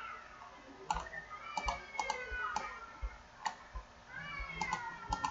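Computer keyboard keys and mouse buttons clicking during copy-and-paste editing: about ten scattered sharp clicks, some in quick pairs. A faint wavering voice-like sound lies between them.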